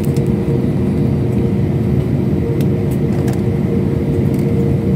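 Steady cabin noise inside an Airbus airliner on the ground before takeoff: a continuous rumble of the engines and air system with a steady hum over it.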